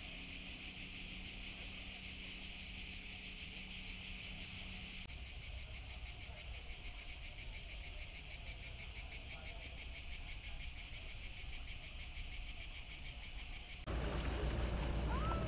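Chorus of cicadas: a steady, high-pitched shrill with a fast pulsing beat. The sound changes abruptly about five seconds in and again near the end, when a low rumble joins.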